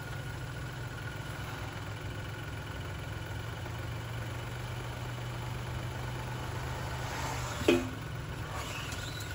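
Ford Bronco Sport's 1.5 L three-cylinder engine idling steadily, freshly refilled with oil. About three-quarters of the way through, a brief sharp squeak dropping in pitch stands out as the loudest moment.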